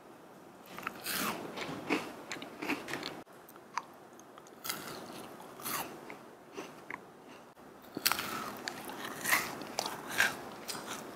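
Close-miked crunching and chewing of a flaky pastry yakgwa, the layered Korean honey cookie, in several clusters of crisp crunches with short quieter pauses between.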